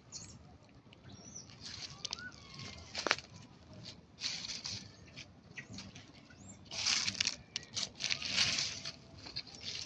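Monkeys making short, high squeaks that bend in pitch, mixed with bursts of scratchy noise and a sharp click about three seconds in.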